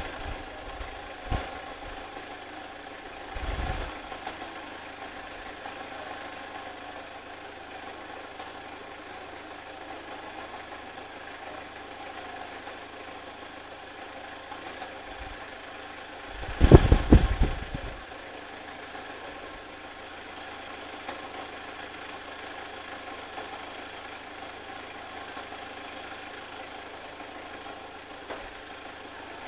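Freshly rebuilt Toyota Hilux 2.8-litre turbo diesel engine idling steadily. There is a brief loud low bump about two-thirds of the way through and a smaller one near the start.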